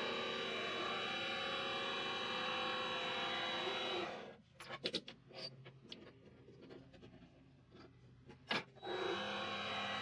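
A mini lathe's motor running steadily, stopping about four seconds in; a few clicks and knocks follow, and the machine starts running again near the end.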